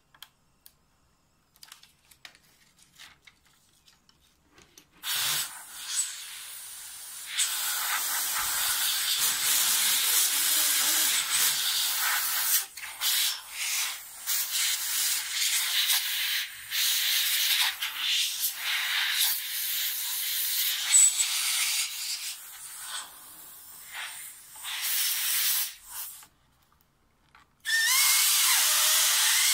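Compressed air hissing from a handheld blow gun, starting about five seconds in and going in long blasts with short breaks, with a pause of about a second and a half near the end. It is blowing water out of the membrane sheets of a water-damaged keyboard to dry them.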